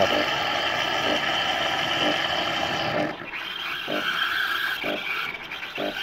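Anko semi-automatic coffee machine's automatic milk frother running, a steady hiss as frothed milk streams from its spout into the cup. It drops a little about three seconds in, with a few short sputters after that.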